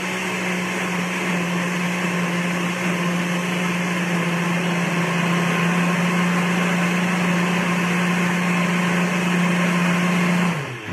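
Countertop blender running steadily as it purées a vegan cheese sauce of nutritional yeast and lemon juice, with a steady motor hum. It is switched off near the end, and the motor winds down with a brief drop in pitch.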